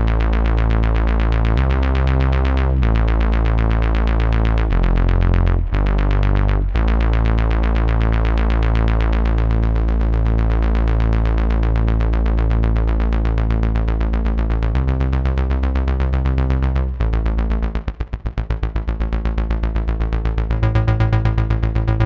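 GForce Oberheim SEM software synthesizer playing its '80s Arpeg' preset: a fast arpeggio of repeated notes over a bass note that changes every second or two. Its tone shifts partway through as the envelope sustain and oscillator mix are adjusted.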